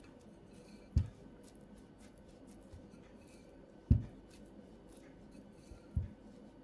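Three dull thumps on a table or work surface, about a second in, near four seconds and near six seconds, with faint handling sounds between.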